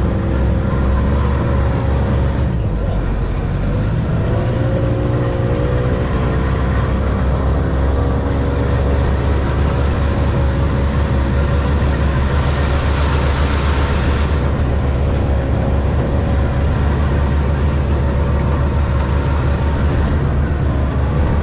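Side-by-side UTV engine running steadily under load as the machine is driven along a rough dirt track, its pitch shifting a few seconds in. A short hiss comes in about thirteen seconds in.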